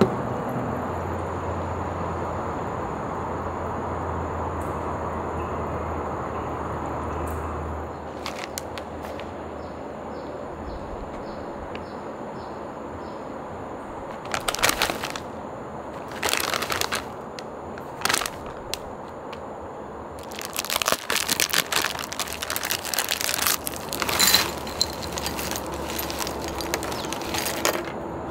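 A crinkly plastic snack bag rustling in several sharp bursts as it is handled, then a dense stretch of crinkling as corn puffs are poured out of it into a bowl.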